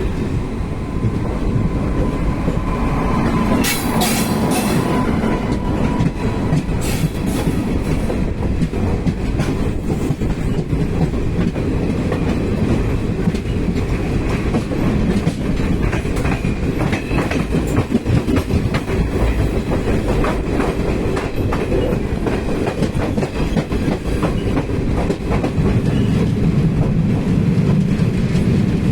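Indian Railways express passenger train running on the track, its coaches' wheels clattering steadily over the rail joints in a continuous loud rumble.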